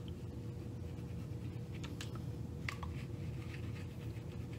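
Fingertips rubbing and scratching at the scalp through thick curly hair while oil is worked in: soft, scattered scratchy rustles, with a few sharper scratches around the middle.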